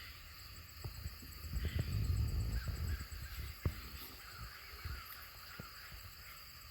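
Freedom Ranger rooster in a killing cone as its throat is cut: low muffled thumps and rustling from the bird and its handling, with a sharp knock about three and a half seconds in and a few smaller clicks.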